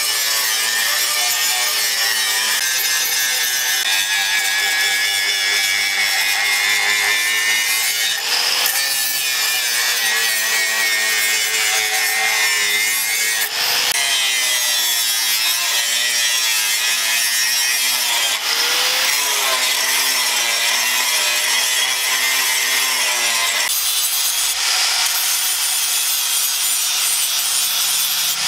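Electric angle grinder with an abrasive disc grinding a steel sword blank cut from a motorcycle disc brake rotor. It runs as a steady loud grinding, with a motor whine that wavers in pitch as pressure on the blade changes, and there are short breaks every few seconds.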